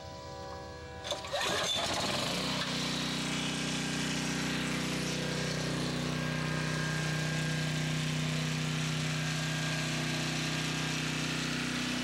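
The 6.75 hp Briggs & Stratton engine of a Troy-Bilt (Generac-built) portable generator is started about a second in, with a sudden jump in level, and catches at once. It then settles into a steady run.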